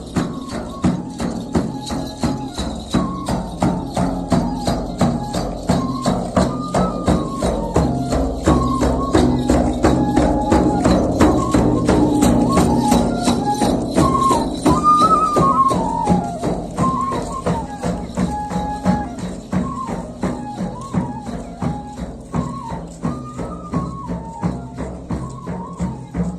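Folk processional music: large frame drums beaten in a steady, even beat, with flutes playing a stepping melody over them.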